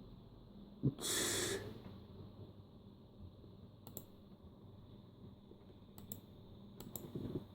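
A short breathy exhale about a second in, then a few sharp, isolated clicks of a ThinkPad R60 laptop's keys and buttons, several seconds apart.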